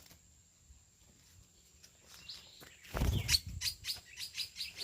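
Green-winged saltator (trinca-ferro) singing: a quick run of short, sharp high notes that starts past the middle, after a near-silent first half, with a low thump as it begins.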